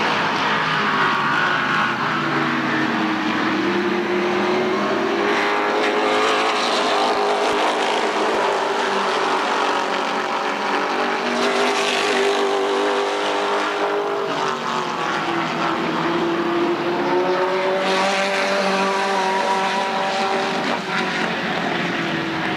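Pavement late model stock car's V8 engine running at racing speed around an oval. Its pitch rises and falls several times as it accelerates down the straights and lifts for the turns.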